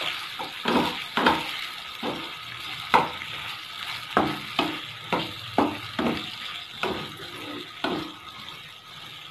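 Wooden spatula stirring chicken pieces through a thick sauce in a frying pan, knocking and scraping against the pan about every half second to second, over a steady sizzle from the pan.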